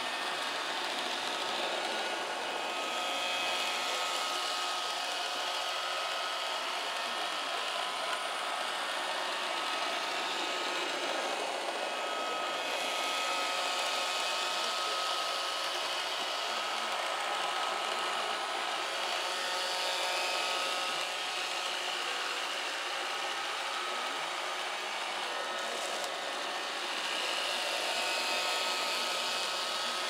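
iRobot Roomba robot vacuum running on carpet: a steady whir of its suction motor and brushes with a few thin high motor tones, swelling and easing slightly every few seconds.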